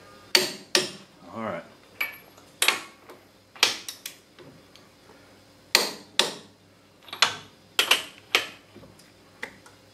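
MAC click-type torque wrench set at 130 foot-pounds, breaking with sharp clicks as it is pulled on leaf-spring U-bolt nuts: about a dozen clicks, several in close pairs, each nut reaching its set torque.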